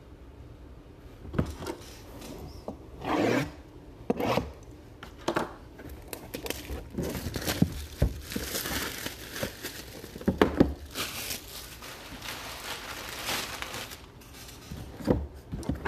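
Plastic wrap crinkling and tearing as a sealed cardboard trading-card box is unwrapped and turned over by hand, with scraping and several sharp knocks of the box against the table.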